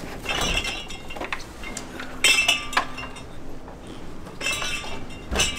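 A front door fitted with mini-blinds being opened and shut, its blinds rattling and clinking against the door in several short bursts.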